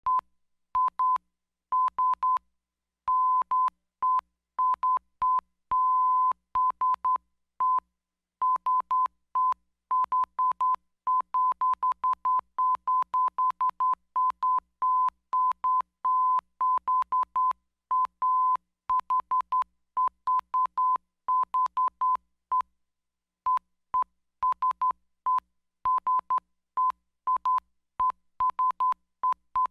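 Morse code signal: a single steady high beep keyed on and off in short and long tones, sounding out SOS over and over, with a faint click at the start and end of each beep.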